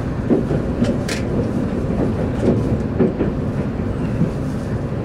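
Steady running noise heard inside the cabin of an E257-series 5500 EMU travelling at speed: a constant rumble of wheels on rail, with a few sharp clicks and knocks.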